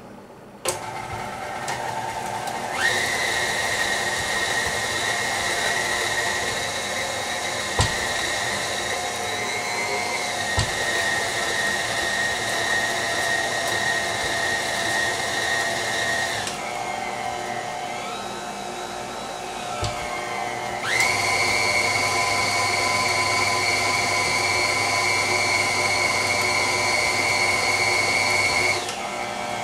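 KitchenAid Ultra Power stand mixer's motor whining as its wire whip beats banana bread batter. It is switched on just under a second in, steps up to a higher speed about 3 s in, drops to a lower speed about halfway, goes back up a few seconds later, and slows again near the end. A few short knocks come over the motor.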